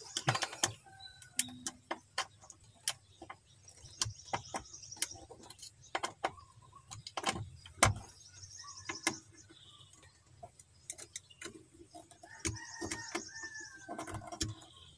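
Scattered clicks and taps of a screwdriver and wiring being worked at a car amplifier's terminals, with one sharper knock about eight seconds in. Birds chirp faintly now and then in the background.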